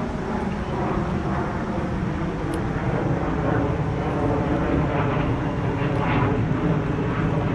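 Jet plane passing overhead: a steady rumbling noise that slowly grows louder.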